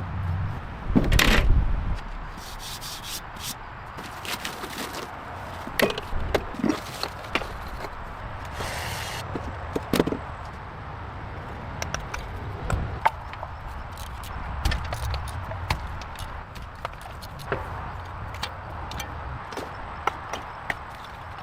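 Irregular workshop handling noises: sharp knocks and clicks at uneven intervals, a few short scraping or hissing stretches, and one heavier knock about a second in.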